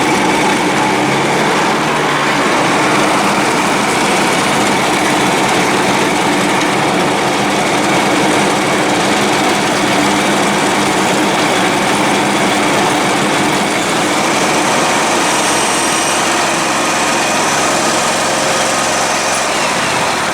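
Dixon riding mower's engine running steadily and loudly, not hitting on all cylinders; the owner suspects a misfire from a failing ignition coil.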